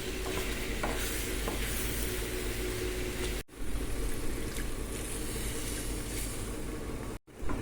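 Food sizzling as it fries in a pan, a steady hiss with a few light clicks. The sound cuts out abruptly twice, about halfway through and near the end.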